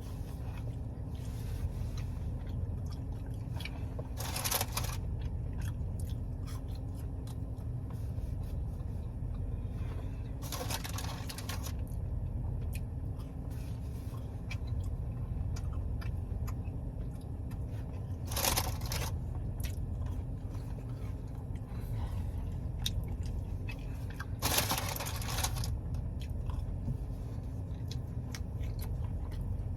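A person chewing fried garlic cheddar cheese bites close to the microphone, with four short louder bursts of mouth and food noise, over a steady low hum.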